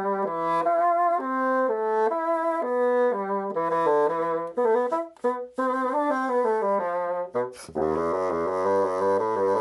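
Bassoon playing a quick, jaunty melody of short, separate notes, with a couple of brief breaks; near the end a lower, fuller part joins in underneath.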